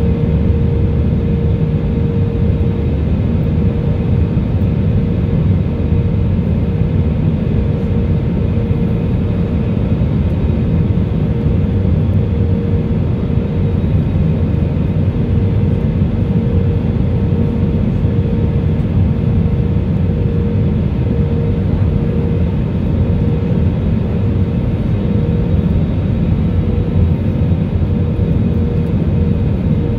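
Cabin noise inside an Airbus A320neo on descent, heard from a seat over the wing: the steady sound of its Pratt & Whitney PW1100G geared turbofan engines and the rushing airflow, with a constant mid-pitched hum running through it.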